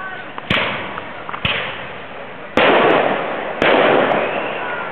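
Aerial fireworks bursting: two sharp bangs about a second apart, then two louder booms about a second apart, each followed by a long fading echo.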